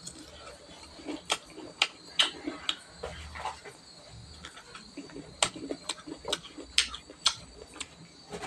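Close-miked chewing of a mouthful of cooked rice, with irregular wet mouth clicks and smacks, over a faint steady high-pitched tone.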